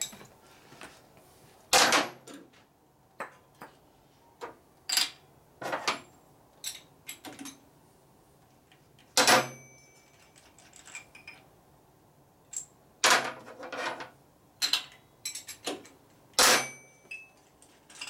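Metal hand tools clinking and knocking against the engine as spark plugs are taken out of a Harley-Davidson Panhead: scattered, irregular clanks, a few ringing briefly, the loudest about two seconds in, halfway through, and twice near the end.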